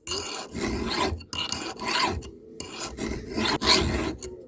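Round chainsaw file, 7/32 inch, rasping back and forth across a saw chain's cutter tooth in repeated strokes, roughly one or two a second, sharpening the top plate and gullet of a tooth bent by hitting a rock.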